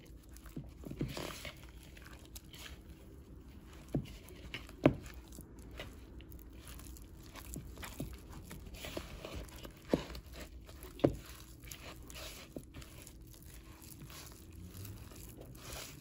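Spatula stirring a thick ricotta-and-shredded-cheese mixture in a plastic mixing bowl: irregular soft squishing and scraping, with a few sharp knocks of the spatula against the bowl.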